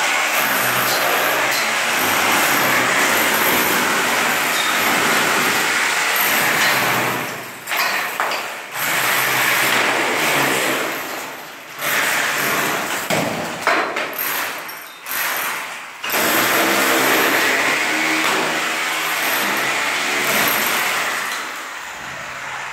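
Electric angle grinder cutting into water-damaged ceiling plaster, running loud and steady. It breaks off several times around the middle, runs again, and dies down near the end.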